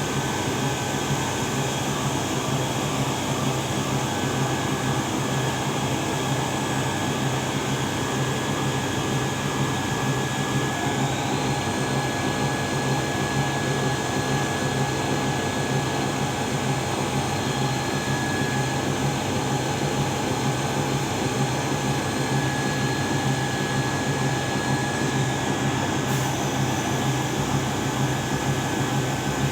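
CNC vertical machining centre and shop machinery running with a steady mechanical hum and several steady high tones. One high whine steps up in pitch about a third of the way in and drops back about two thirds through.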